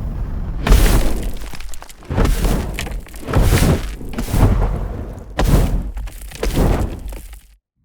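Designed fire-creature sound effects: layered fire whooshes and flamethrower-like blasts over a deep, continuous rumble, rising in about six heavy surges roughly a second apart, then cutting off abruptly near the end.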